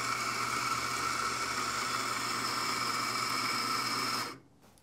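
Eureka Mignon Libra grind-by-weight espresso grinder running steadily with a whine while grinding coffee into a portafilter, then cutting off sharply near the end as the grinder stops itself at its set 16 g dose.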